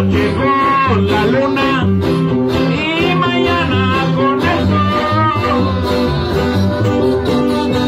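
Live violin and requinto guitar playing a tune: the violin carries a wavering melody over a steady, regular plucked bass-and-chord rhythm.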